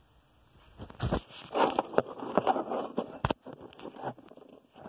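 Handling noise from the camera being picked up, moved and set down on a surface: a low thump, rustling and scuffing, and a sharp knock about three seconds in, followed by lighter clicks.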